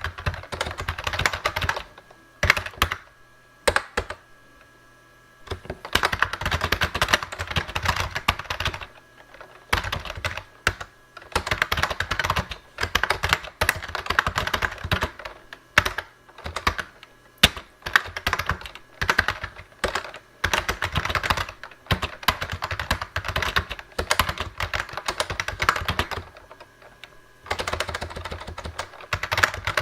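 Steady fast typing on a Lexmark-made Model M style keyboard with rubber-dome switches, the keystrokes coming in quick bursts broken by short pauses. The longest pause is about two to five seconds in.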